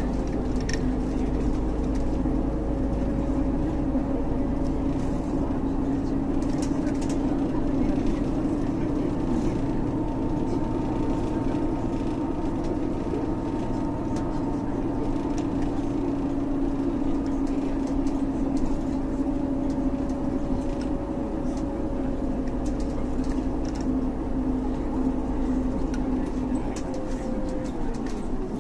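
A bus moving along the road, heard from inside the cabin: a steady engine and drivetrain hum with a drone whose pitch drifts slowly, dropping near the end as the bus slows.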